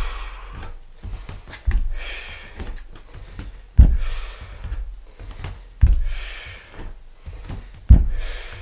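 Bare feet thudding on a wooden floor during lunges, four heavy steps about two seconds apart, with hard breathing between them.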